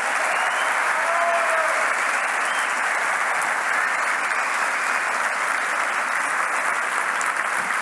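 Large audience applauding steadily in a big hall.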